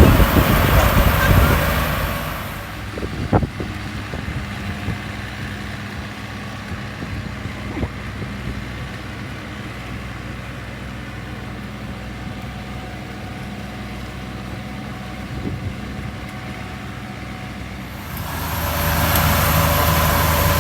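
Combine harvester engine running steadily: loud at first, quieter for most of the stretch, then louder again near the end, with a few sharp clicks in between.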